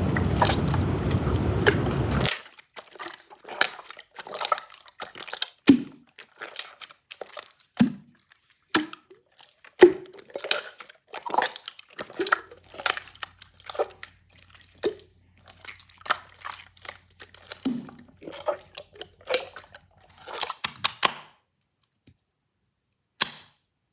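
Close-miked crunching and squishing: a long series of short, sharp crunches and clicks, some with a soft low thud. It opens with about two seconds of steady rushing noise.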